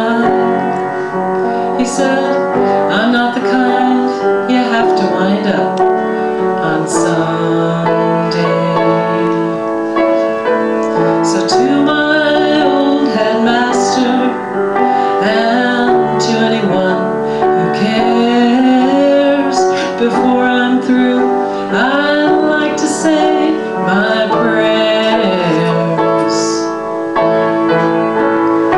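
A woman singing a rock ballad live, over piano accompaniment.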